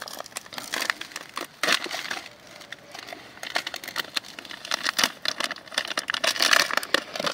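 Foil bag of dry groundbait mix crinkling and crackling as it is torn open and handled, then the crumbly mix rustling as it is shaken out into a bait bucket. The crackling is densest near the end.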